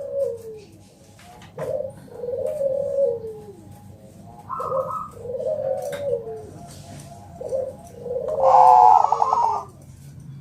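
Bangkok-strain zebra dove (perkutut) cooing in repeated phrases of short notes and longer falling coos, with a louder, rapid rolling trill about eight and a half seconds in.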